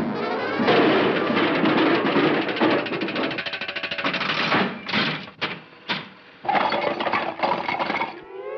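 Cartoon orchestral score mixed with a long rattling clatter of tumbling trash, broken by a few sharp knocks in the middle. A rising brass slide comes in at the very end.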